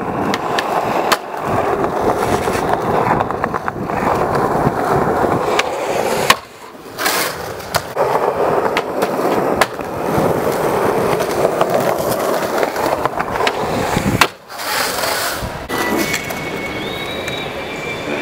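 Skateboard wheels rolling over concrete, broken by sharp clacks of the board popping and landing. The rolling cuts off abruptly twice. Near the end it gives way to a quieter stretch.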